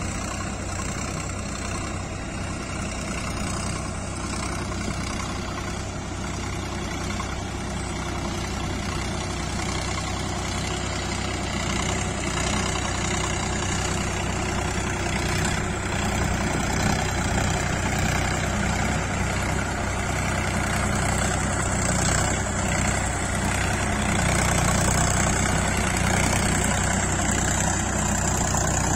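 Sonalika Sikander 47 RX 4WD tractor's diesel engine running steadily as it works through a wet paddy field, growing gradually louder as it comes closer.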